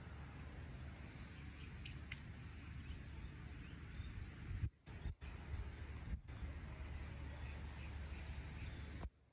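Outdoor ambience: a steady hiss over a low rumble, with scattered short high chirps of small birds. The sound drops out briefly a few times, about halfway through and again near the end.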